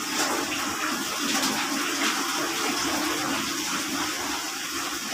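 Steady rushing noise, like running water, with no speech over it.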